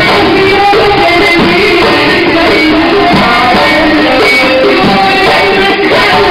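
Tunisian hadra music: women singing a devotional song in unison over frame drums (bendir) and tambourines played in a steady rhythm, loud and amplified.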